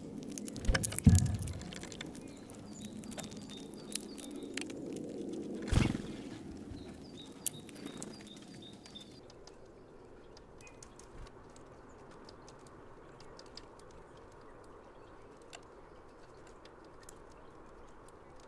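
Knocks, taps and clicks of Eurasian bullfinches feeding on sunflower seeds at a bird feeder, with a few heavy thumps in the first six seconds. The sound then settles into quieter, scattered clicks.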